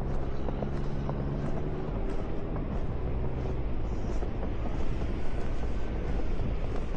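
Blizzard wind blowing steadily, with a vehicle engine humming nearby that fades out two to three seconds in.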